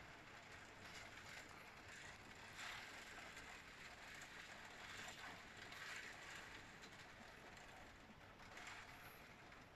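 Heavy thunderstorm rain heard through window glass: a faint, steady hiss that swells softly every second or so, with light ticking of drops.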